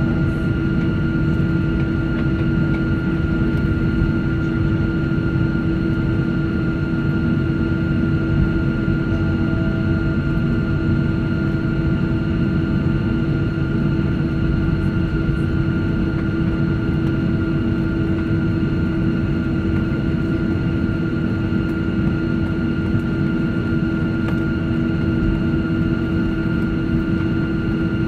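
Boeing 737-700's CFM56-7B turbofan engines running at taxi idle, heard inside the cabin over the wing. It is a steady rumble carrying a fixed low hum and a fainter, higher steady tone, unchanging throughout.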